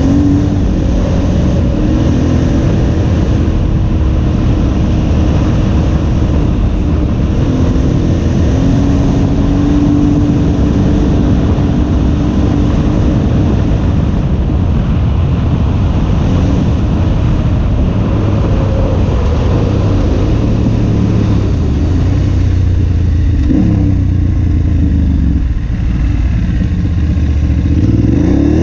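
KTM 950 Adventure's V-twin engine, fitted with an Akrapovic exhaust, pulling steadily under riding load, with the revs rising and falling between gear changes and a clear rise about three quarters of the way in. Wind noise runs under the engine note.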